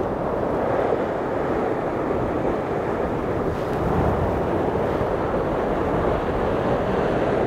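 Sea surf breaking and washing over a rocky shore in a steady rush, mixed with wind buffeting the microphone.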